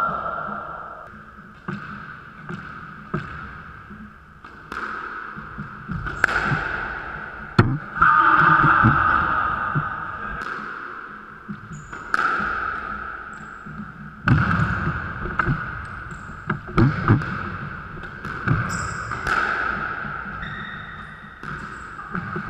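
A squash rally: a squash ball cracking off racquets and the court walls, irregular sharp knocks about every second or two, each ringing on in the enclosed court.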